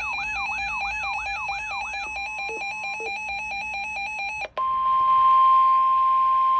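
An electronic alarm of steady high tones with quick repeated falling sweeps, the sweeps stopping about two seconds in. It cuts off suddenly about four and a half seconds in and gives way to a single steady tone near 1,000 Hz, the NOAA Weather Radio warning alarm tone that comes before a warning is read.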